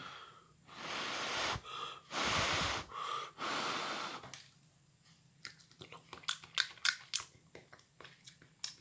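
A man breathing out hard: about four long, noisy breaths in the first four seconds, as over freshly microwaved, still-hot pepper. This is followed by soft, irregular small clicks and smacks of chewing.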